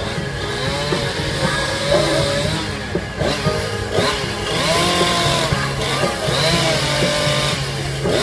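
Chainsaw running continuously while carving wood, its engine pitch rising and falling again and again as the saw is throttled up into cuts and eased off.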